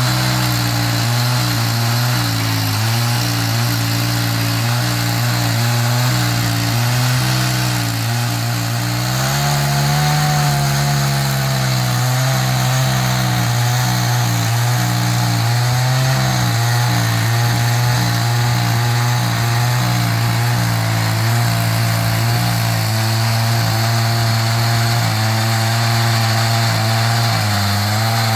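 Chainsaw in an Alaskan chainsaw mill running steadily at high speed under load, ripping a walnut log lengthwise into slabs. The engine note rises briefly about ten seconds in, then settles, with a short dip near the end.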